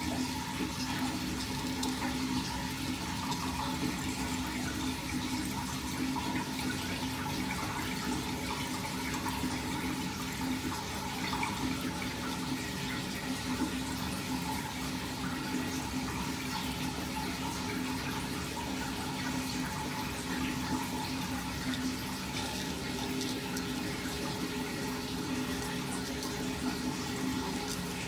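Water swirling down an unclogged sink drain in a whirlpool vortex: a steady rush of flowing, draining water with a faint, even hum.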